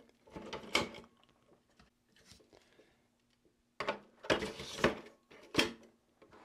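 Hard-drive trays sliding into the drive bays of a Synology DS920+ NAS and clicking home. There is a scrape and click around the first second, then a few more in quick succession about four to six seconds in.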